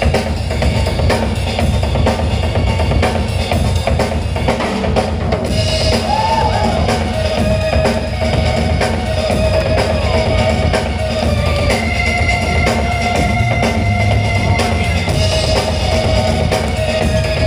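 Loud drum-heavy break-beat music with a steady kick and snare, held melodic tones over it.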